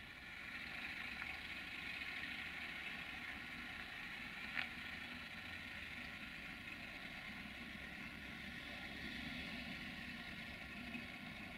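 Diesel rail vehicle idling steadily, with one sharp click about four and a half seconds in.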